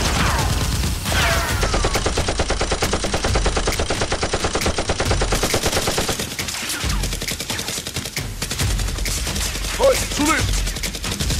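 Gunfire sound effects: rapid automatic fire, densest and most even from about one to six seconds in, then sparser shots. Two falling whines sound near the start.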